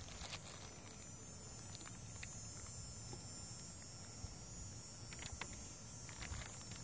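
Faint outdoor background: a steady high hiss over a low rumble, with a few soft clicks.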